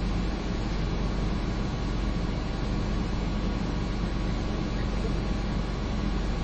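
Steady hubbub of a packed crowd, heard as an even rush of noise over a low rumble, with no single voice standing out.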